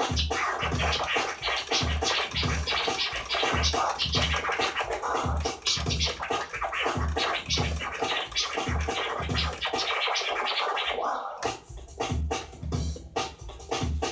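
DJ scratching over an electronic beat on a CD turntable with a vinyl-style platter, the scratches chopped into rapid short cuts over a steady kick drum. The kick drops out briefly about ten seconds in, then returns.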